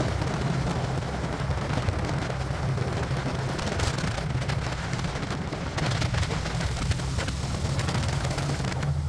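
Motorcycle riding along at road speed: a steady low engine drone under wind noise buffeting the microphone.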